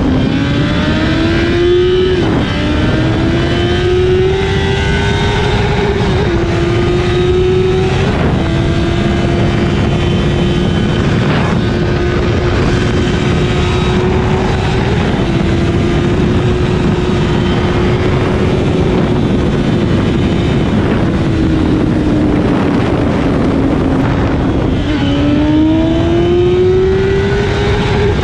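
Honda CBR1000RR's inline-four engine pulling up through the gears, its pitch climbing and dropping back at each upshift, then holding a steady cruise before dipping and climbing again near the end. Steady wind rush runs underneath.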